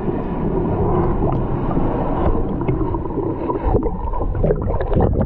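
Muffled underwater rumble of water churned by a swimming elephant, with bubbling pops and clicks from about three and a half seconds in as bubbles stream past.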